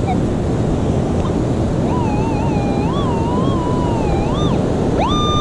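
Metal detector target tone over heavy surf and wind noise: a wavering, warbling tone for about two and a half seconds as the coil is worked over a buried quarter, then a tone that rises sharply and holds steady near the end.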